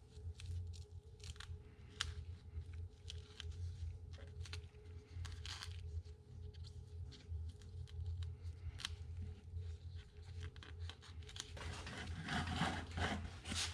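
Scattered small clicks and crackles of hand work at the Kubota B7100's rear axle, over a steady low hum, getting busier and louder near the end.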